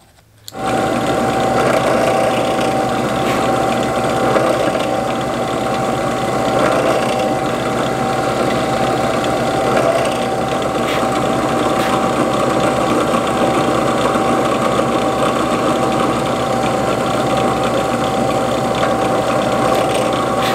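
Benchtop drill press motor starting about half a second in and running steadily with a constant whine, while a small bit drills stitching holes through a leather knife sheath.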